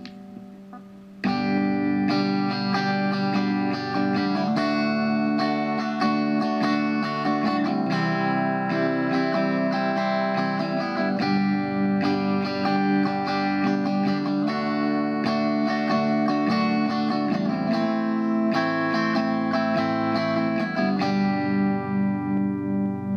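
Guitar played through a Behringer compressor pedal, sustained chords and picked notes changing every second or so. A quiet ringing note at first, then much louder playing from about a second in.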